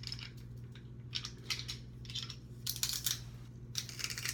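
Unskinned garlic cloves being handled and loaded into a hand garlic press: a string of short, irregular clicks and crackles.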